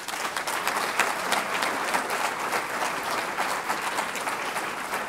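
Audience applauding: many people clapping at once in a steady, dense patter.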